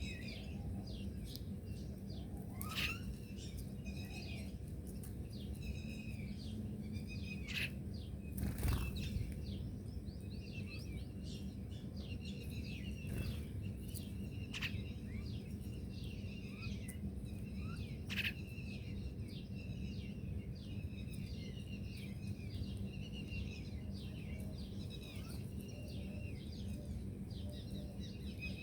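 Many small birds chirping continuously in quick, short, high chirps, over a steady low background hum, with a few sharp clicks scattered through.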